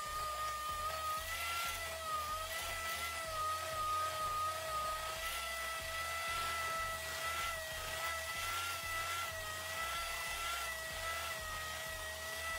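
Electric hand mixer running steadily, its beaters working softened cream cheese in a stainless steel bowl until creamy, with a steady motor whine that wavers slightly in pitch.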